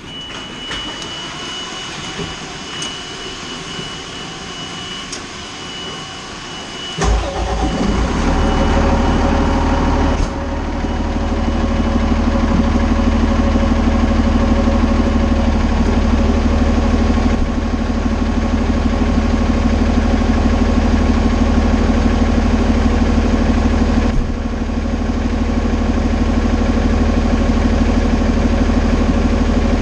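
Fire engine's diesel engine cranking and starting about seven seconds in, then running loud and steady at idle, its level stepping down briefly around ten seconds and again near the end. Before it starts there is a steady high tone.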